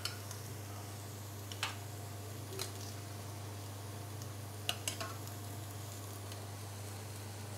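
Light clinks of a utensil against dishes and a pan, a few times, two of them close together near the middle, over a steady low hum.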